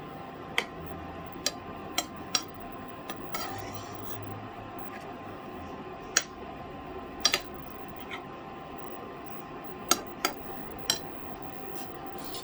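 A spoon knocking and clinking against a cooking pot while a curry is stirred: about a dozen sharp, irregular knocks, over a steady faint hum.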